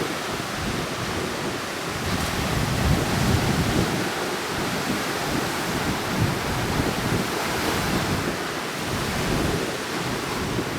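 Heavy surf breaking steadily on the shore, driven by strong monsoon winds, with gusts buffeting the microphone in low rumbles.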